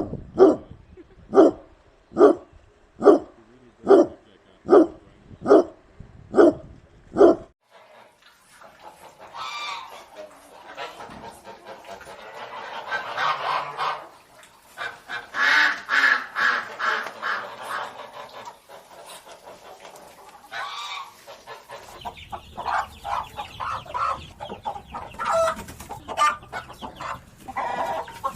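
A dog barking about ten times in a steady rhythm, stopping after about seven seconds. A flock of fowl then honks and calls over one another for about twelve seconds, and chickens cluck near the end.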